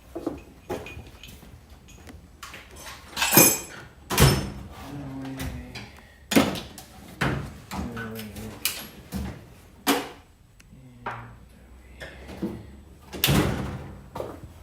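Irregular knocks, clunks and clatter of hand tools and parts being handled in a car's engine bay during reassembly, a few of the strikes ringing briefly like metal.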